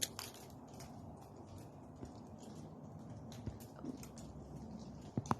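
Tree seed pods dropping and pattering on dry leaves and brush, an irregular scatter of light ticks that sounds like sleet falling, with a couple of louder snaps near the end.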